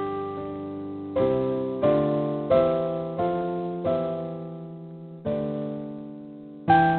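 Background piano music: slow chords struck every half second or so, each note ringing and fading, with a fresh louder chord near the end.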